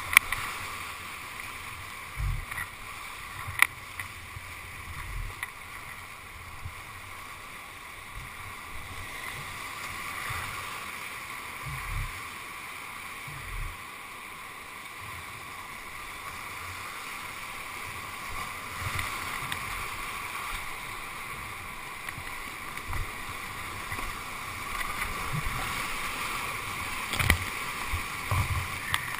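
Whitewater rapids rushing as a steady hiss, heard through a GoPro's waterproof housing. Scattered short low thumps and a few sharp knocks break in as water and the paddle strike the kayak and camera.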